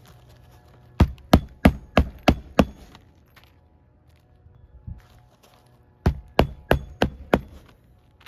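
A hammer striking nails, in two runs of about six quick blows each, the second near the end, typical of nailing down roof shingles.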